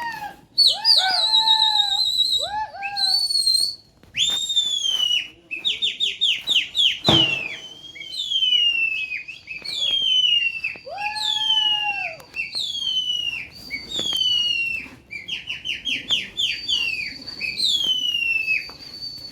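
Shrill whistling, repeated again and again: long notes that slide steeply down in pitch, broken by quick strings of short notes. There is a single knock about seven seconds in.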